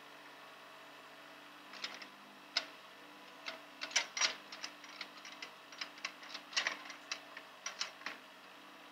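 Takeuchi mini excavator's engine running steadily in the background while its bucket works loose soil, with irregular sharp clicks and clacks starting about two seconds in, the loudest a little past the middle.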